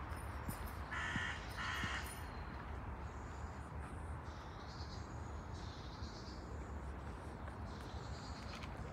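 A crow cawing twice in quick succession about a second in. Small birds chirp high and thin throughout, over a steady low rumble.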